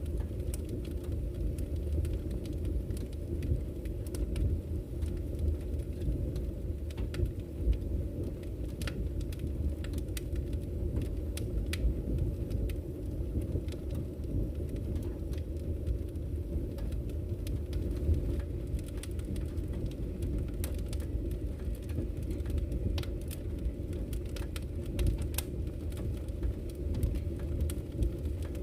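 Wood fire burning in a fireplace: a steady low rumble of the flames with many scattered sharp crackles and pops from the burning logs.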